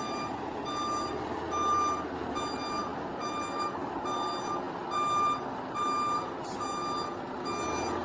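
Reversing alarm of a heavy tractor-trailer hauling a lowboy trailer, beeping evenly just over once a second, over the steady running of the truck's engine.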